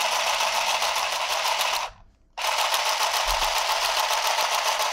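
Handheld electric sewing machine stitching through a denim jeans hem, its needle running in a fast, even clatter. It stops for about half a second about two seconds in, then starts again.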